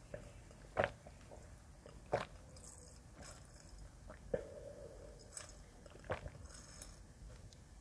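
Close-miked mouth sounds of a person chewing food, with four loud, wet smacks spaced about one and a half to two seconds apart and a few fainter ones between them. A brief low hum comes just after the third smack, about halfway through.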